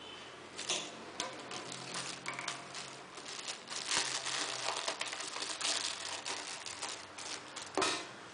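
Irregular rustling, crinkling and light clicks of things being handled, with sharper bursts about four seconds in and again near the end.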